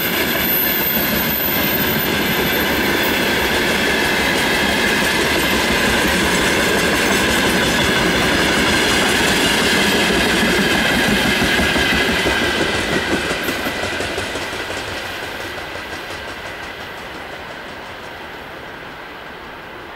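Loaded freight gondola wagons rolling past, a dense rumble and clatter of wheels on rail with a steady high whine over it. About 13 seconds in, the last wagons' wheels click over the rail joints, and then the noise fades as the train moves away.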